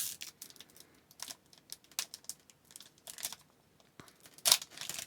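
Foil trading-card pack wrapper crinkling and crackling in the hands as it is torn open, in scattered short bursts with a louder crackle near the end.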